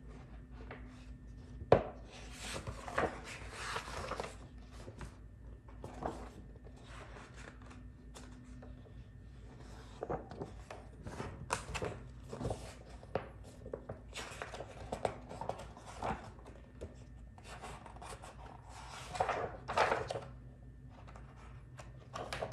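Pages of a paper booklet being turned and handled: repeated uneven rustles and flaps of paper, with one sharp tap a little under two seconds in.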